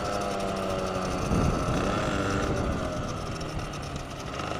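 Supermoto moped's small engine running under the rider as the bike slows: its note falls away, picks up briefly about a second and a half in, then settles lower near the end. Some wind on the microphone.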